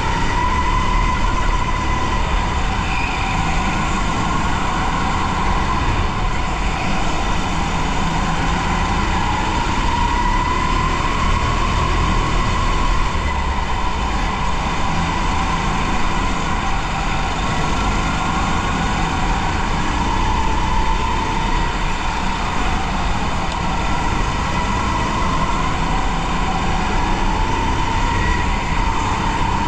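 Onboard sound of a go-kart at race pace: a steady motor note whose pitch slowly rises and falls with speed through the corners and straights, over a constant low rumble of tyres and chassis vibration.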